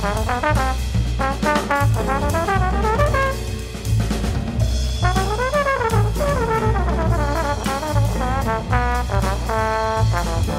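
Music: a horn-led, jazz-style tune playing quick rising and falling runs of notes over a heavy bass and drum beat, with a few held notes near the end.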